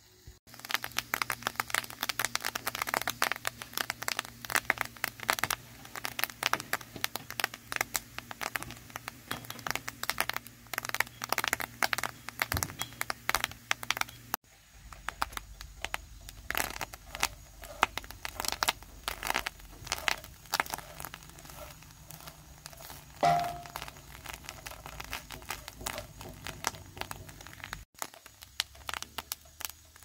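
Egg yolks frying in a cast iron skillet, crackling and sizzling densely as they are stirred and broken into crumbs while being cooked down to render egg yolk oil. The sound cuts off abruptly and resumes twice.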